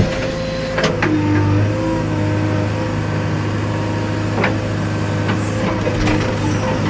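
JCB backhoe loader's diesel engine running steadily at working revs, its pitch shifting slightly, with a few sharp knocks: about a second in, twice close together, again near the middle and near the end.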